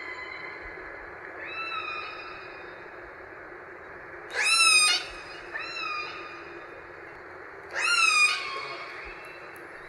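Orca calls: pitched, squealing calls that rise sharply and then slide down. Two loud ones come about four and eight seconds in, with fainter ones between, over a steady hiss.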